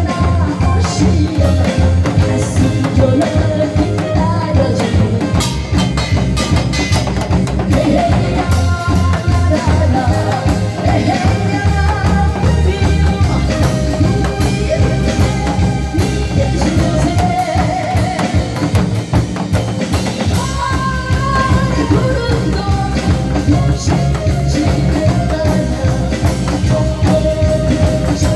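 Live singing over loud amplified backing music with a steady drum beat.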